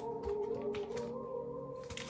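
Background music of steady held tones, with a few faint clicks over it.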